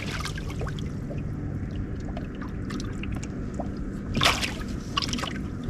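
Water trickling and sloshing around a fishing boat, with scattered small clicks, a steady low hum underneath and a brief louder splash-like burst about four seconds in.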